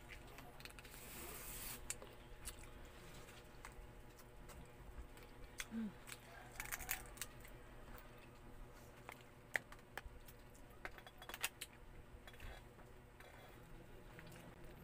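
Cooked crab being eaten by hand: shell cracked and pulled apart with fingers, with scattered small crackles and clicks of shell and soft mouth sounds.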